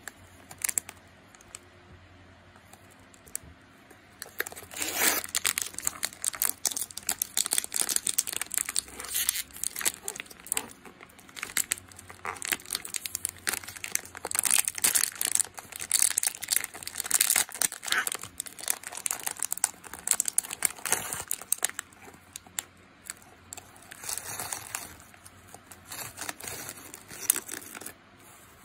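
Thin plastic film wrapper of a cookie tube crinkling and tearing as it is peeled open by hand. A dense crackle starts about four seconds in, with a shorter burst of crinkling near the end.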